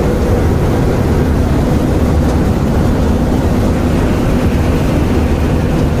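Combine harvester running while it cuts crop, its header reel turning: a loud, even drone of engine and machinery with a steady hum on top.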